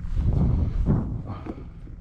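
Wind buffeting the microphone, a low rumble, with a few soft knocks and taps against the fishing kayak's hull.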